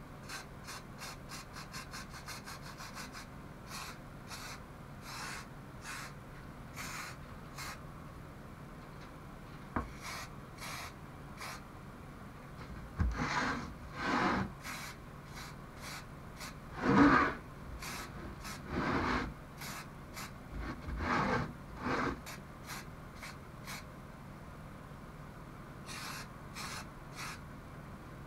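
Aerosol can of matte black spray paint: the mixing ball rattles fast as the can is shaken, then a string of short spray hisses, about six over ten seconds, as the paint goes on, with a few more rattles near the end.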